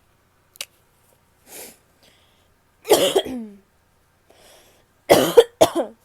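A woman coughing: a breath drawn in, then one cough about three seconds in and two quick coughs close together near the end.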